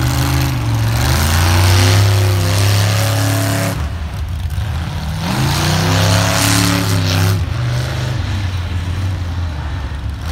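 Engine of a mud-bog truck on giant tractor tyres revving hard as it churns through deep mud. The revs climb twice, about half a second in and again about five seconds in, with a brief drop in between.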